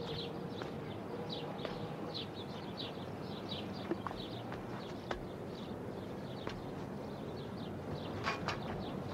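Small birds chirping in quick, repeated short calls over a steady background hiss, with a few scattered sharp clicks.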